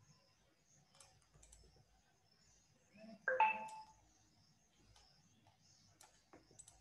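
Faint, scattered computer-mouse clicks while lines are drawn on screen. A little after three seconds in comes a short two-note electronic tone, the loudest sound here, of the kind a phone or computer notification makes.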